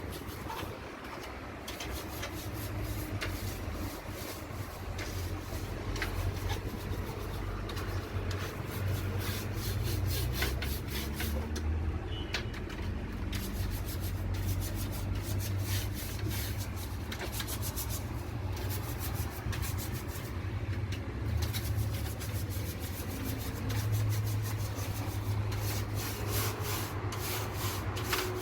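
Repeated rubbing or scraping strokes over a steady low hum.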